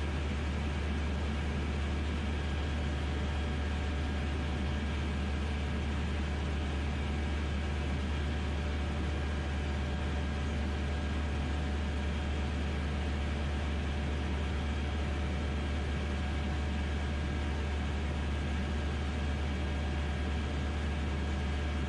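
DynAero MCR01 ultralight's piston engine and propeller running steadily in cruise, heard inside the cockpit as a constant low drone with a few steady higher tones over it.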